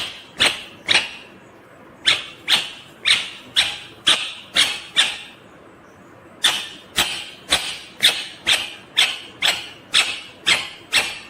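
Indian ringneck parakeet giving short, harsh squawks, about two a second, in three runs with brief pauses between them.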